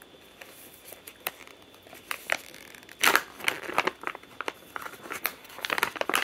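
A beef jerky bag being torn open by hand: light crinkling and ticks at first, then a loud rip about three seconds in, followed by busy crinkling of the bag as it is pulled open.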